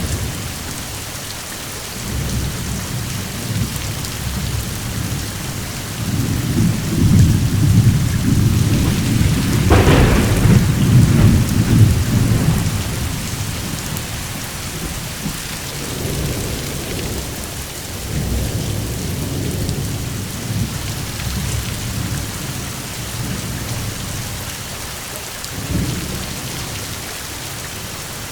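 Steady rain with rolling thunder. A long rumble builds about a quarter of the way in and peaks with a sharper crack near the middle, and a shorter rumble comes near the end.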